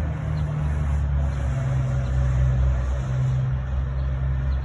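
Steady low hum of a running vehicle engine.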